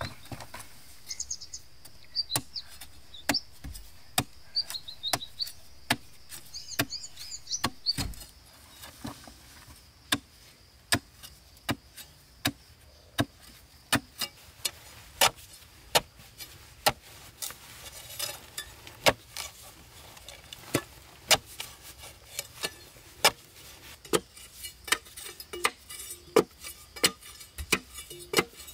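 Repeated sharp strikes of a hand tool on wood, about one a second at first and quicker near the end, with birds chirping over the first several seconds.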